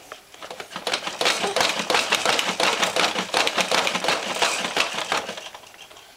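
A baby bouncing in a plastic activity-center seat: the seat and its attached plastic toys rattle and clatter in a quick, dense run of clicks for about five seconds, then die away near the end.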